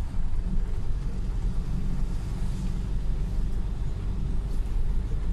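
Steady low engine and road rumble of a tour bus driving along a city street, heard from inside the cabin.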